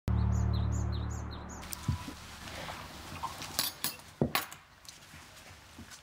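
Birds chirping in quick, repeated falling calls over a low held note for the first second and a half, then a few scattered light knocks and clicks.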